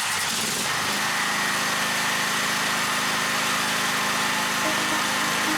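Small petrol generator engine running steadily, with a loud even hiss over its hum.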